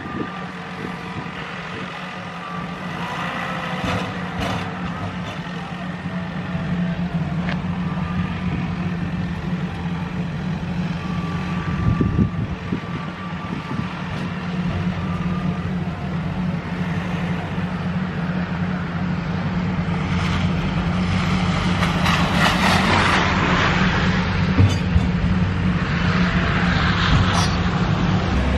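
John Deere compact tractor running a front-mounted snowblower: a steady engine drone that grows gradually louder, with a rushing hiss joining it in the last several seconds.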